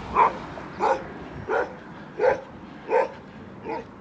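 A dog barking, six barks evenly spaced about two-thirds of a second apart.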